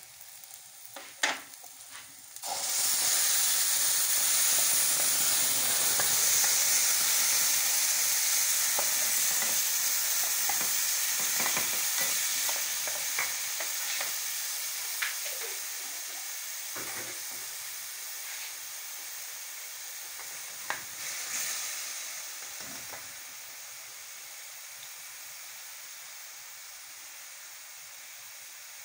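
Chopped tomatoes hitting onions frying in oil in an aluminium pot: a sudden loud sizzle about two and a half seconds in that slowly dies down to a softer frying hiss. A wooden spoon knocks and scrapes against the pot now and then.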